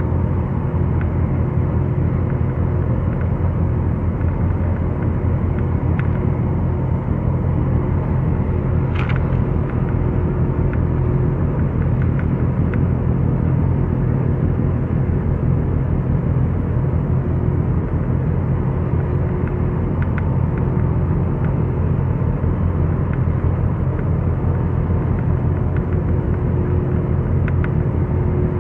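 A boat's engine running steadily: a loud, even low rumble with a faint steady hum above it and a few faint ticks.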